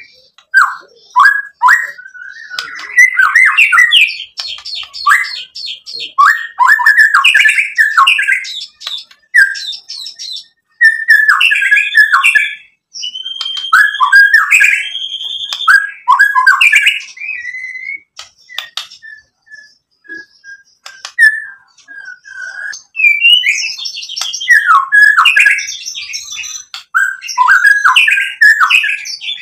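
White-rumped shama (murai batu) singing: a loud, varied song of rapid whistled phrases and sharp notes. A little past the middle it drops to a quieter string of short, even pips, then breaks back into full song.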